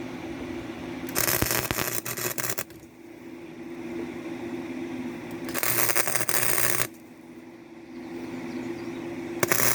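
Gasless flux-core wire welder laying three short crackling welds, each about a second and a half long, about four seconds apart. A steady low hum runs between the welds.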